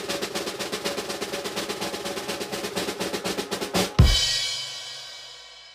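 Snare drum roll of rapid, even strokes, ending about four seconds in on one loud hit that rings out and fades.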